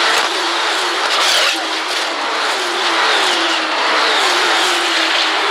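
Formula 2 cars' turbocharged V6 engines running flat out as the pack passes, heard through a TV broadcast feed. The engine note keeps bending up and down in pitch over a dense, steady noise.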